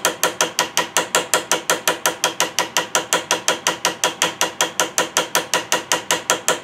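Small ball-peen engraving hammer tapping lightly and quickly on a brass rivet, about five sharp metallic strikes a second in an even rhythm. The rivet head is being peened over to set a brass nose cap.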